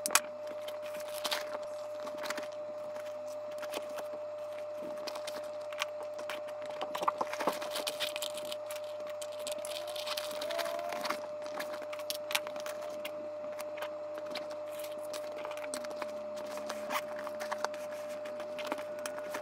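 Handling noise as small items are packed into a Louis Vuitton Pochette Métis leather handbag: scattered clicks, taps and rustles of objects against the bag and each other, over a faint steady hum.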